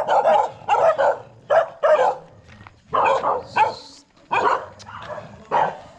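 A dog barking repeatedly, loud short barks in quick runs of two or three with brief pauses between them.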